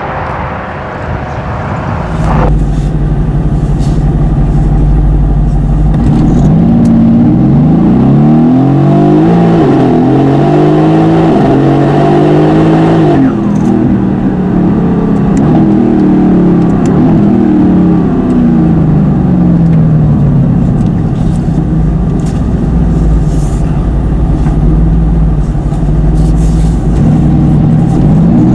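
Tuned Mercedes-AMG GT S twin-turbo V8 under hard acceleration. The car gets much louder about two seconds in, its pitch climbs and drops again and again through the gears, then it settles into a steady drone before pulling up in pitch again near the end.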